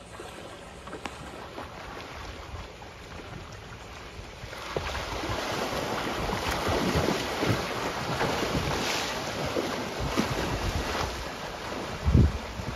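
Dolphins thrashing and splashing in shallow water. The splashing starts about five seconds in, with sudden surges and one loud splash near the end. Wind buffets the microphone throughout.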